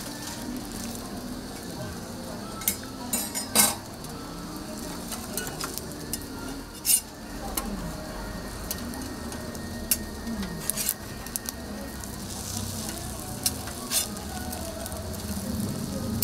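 Food sizzling steadily on a flat-top griddle, with several sharp metal clinks and scrapes of a spatula or utensils against it; the loudest clink comes about three and a half seconds in.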